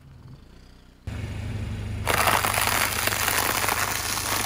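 Car tyre rolling onto and crushing brittle coloured snack discs. A low rumble starts about a second in, then a dense, loud crackling crunch from about two seconds in.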